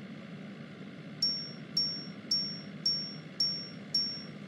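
Car seatbelt warning chime: six high dings about half a second apart, starting about a second in, over a steady low cabin rumble. The chime is the warning for an unbuckled seatbelt.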